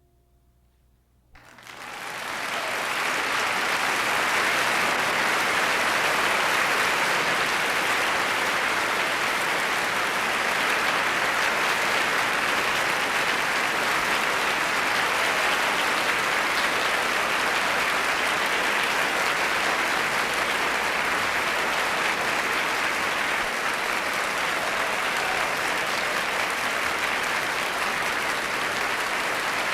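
Concert hall audience applauding. After a second and a half of near silence the applause breaks out, swells within a couple of seconds, and then holds steady.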